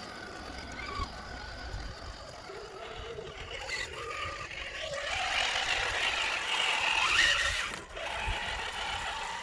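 Electric motor and geared drivetrain of a scale RC crawler truck whining as it climbs a dirt and gravel slope. The sound grows louder from about halfway through, with the whine rising in pitch, and cuts off sharply near the end.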